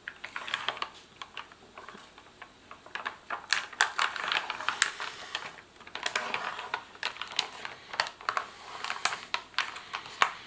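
Plastic ration food packaging being handled and opened: crinkling and rustling with many sharp clicks and crackles.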